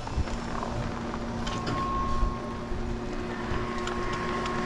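Ski chairlift running: a steady mechanical hum of a few tones over a low rumble, with scattered light clicks.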